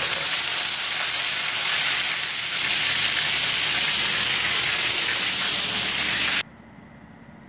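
Maya-maya (red snapper) pieces frying in hot oil in a pan, a steady loud sizzling that cuts off suddenly about six seconds in.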